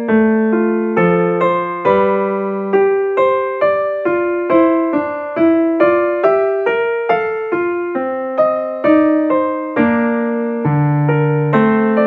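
Background music: a slow solo piano piece, single notes and chords struck about one and a half times a second and left to fade.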